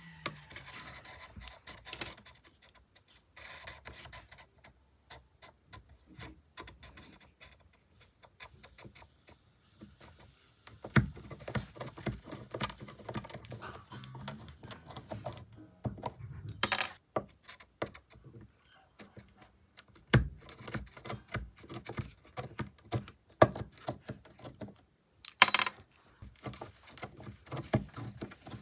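Old frets being pulled from an ebony fretboard with fret-pulling nippers while a soldering iron heats each fret: irregular sharp clicks and small metallic clinks of the nipper jaws and the loose fret wire, with a few louder snaps.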